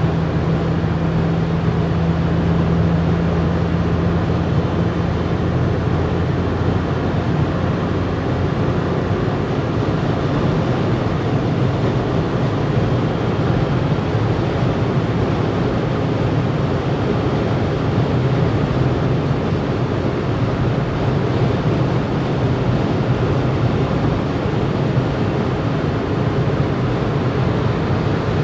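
Cabin noise of a 2012 Volkswagen up! cruising at speed: steady road and wind noise over the drone of its 1.0-litre three-cylinder petrol engine, the engine drone easing somewhat about six seconds in.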